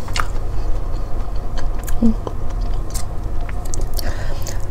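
Close-miked chewing of spicy instant cup noodles: soft wet mouth clicks and smacks, over a steady low hum.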